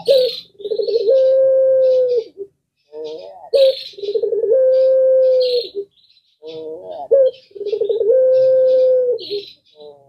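Puter pelung, a domestic collared dove, cooing: three long coos, each opening with a quick stuttering run of notes and then holding one long steady note. High, rapid chirping from other birds runs through the background.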